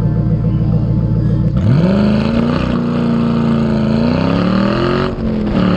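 Ford Mustang engine and exhaust accelerating: the pitch climbs sharply about a second and a half in, holds, rises again, then drops suddenly just after five seconds at a gear change and picks up again.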